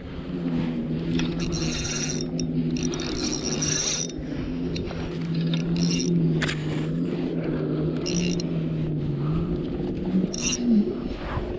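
Spinning reel being wound in against a hooked fish: a steady gear whir that wavers slightly in pitch and rises briefly near the end, with a few short rasps on top.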